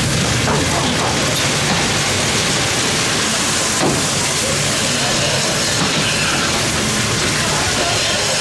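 Steady loud noise of goat milking-parlour machinery, the milk pump running without pause.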